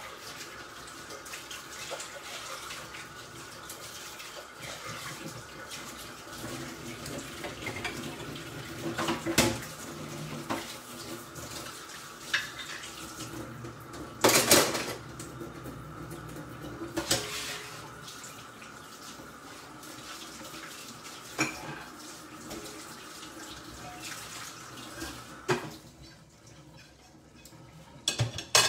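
Kitchen tap running into a sink while dishes are washed, with clinks and knocks of crockery and cutlery, the loudest about halfway through. The running water stops a couple of seconds before the end.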